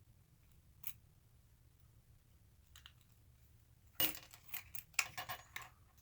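Small hard plastic clicks and rattles from a Volkswagen key remote being handled as its battery cap is fitted back on: a single click about a second in, a few faint ticks, then a quick run of clicks and rattles in the last two seconds.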